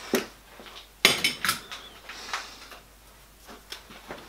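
Light metallic clinks and clicks of steel hand tools and parts being handled at a metal lathe: a quick cluster about a second in, then scattered smaller clinks.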